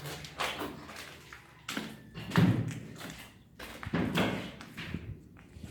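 A handful of dull thumps and knocks at uneven intervals, the loudest about two and a half and four seconds in.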